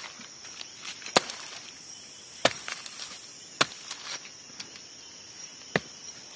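A blade chopping into a spiky forest fruit on the ground, about four sharp strokes a second or so apart with lighter taps between. Insects drone steadily and high-pitched behind it.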